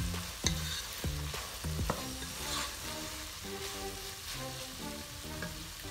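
Ground pork and beef sizzling in a pot while a wooden spatula stirs it, with the spatula scraping and knocking against the pot several times in the first two seconds. The meat is cooked down, with its liquid gone.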